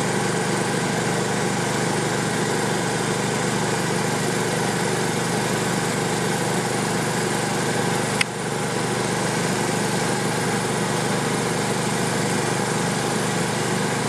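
The live truck's generator running steadily, a constant engine hum. A single sharp click a little past eight seconds in, with a brief dip in the hum.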